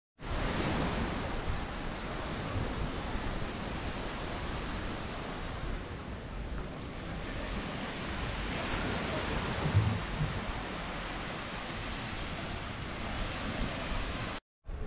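Small waves breaking and washing up a sandy beach, with some wind on the microphone: a steady rushing noise that drops out briefly near the end.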